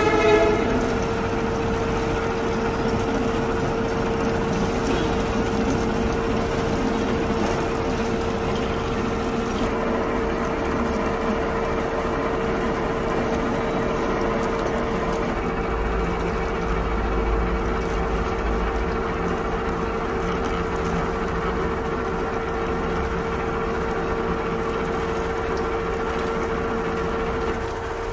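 Mitsubishi manual lathe running under power while single-point threading an 8 mm pitch thread along a long steel shaft held in a follower steady rest: the steady whine of the machine over the noise of the cut.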